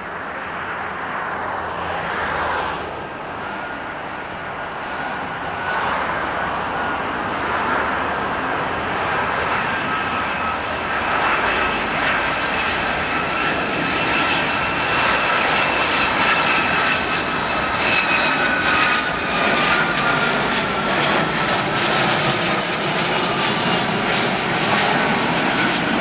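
Boeing 757-300 jet airliner's engines on landing approach: a roar with high whining tones, growing steadily louder and dipping slightly in pitch late on as the aircraft passes.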